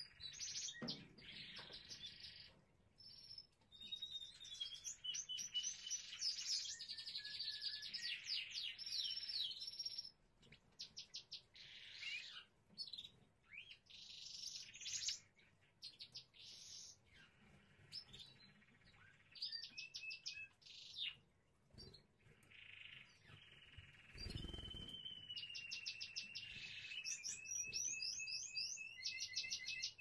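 A canary singing: fast trills and rapid chirps in phrases broken by short pauses, with long steady rolling notes, the longest in the last quarter. A brief low thump about two thirds of the way through.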